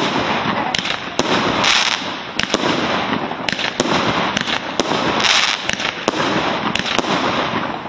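Aerial fireworks going off: many sharp bangs at uneven intervals over continuous crackling as shells burst overhead.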